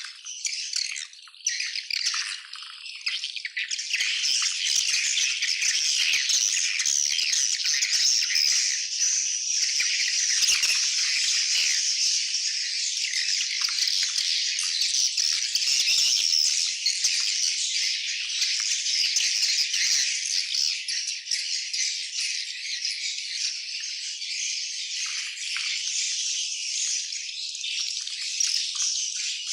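A large colony of swiftlets giving dense, continuous high-pitched twittering and clicking chatter, many birds calling at once. It swells to full strength about four seconds in.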